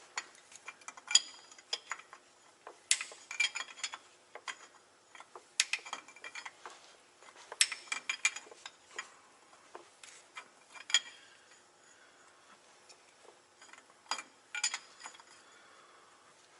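Hand tools working metal fittings on a truck: irregular metallic clicks and clinks with short bursts of ratchet-like clicking, with a quieter stretch past the middle.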